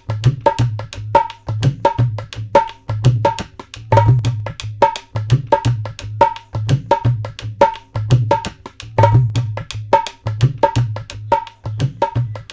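Background music with a steady percussion beat: sharp, ringing high strokes, about two to three a second, over a deep drum.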